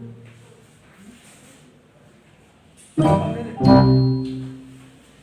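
Background music: low for about three seconds, then two loud chords about half a second apart that ring and fade.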